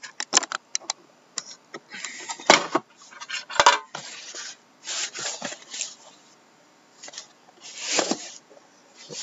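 A sealed cardboard shipping case being handled and turned over on a desk: irregular knocks and clicks, the two loudest about two and a half and three and a half seconds in, with short stretches of cardboard scraping and rubbing.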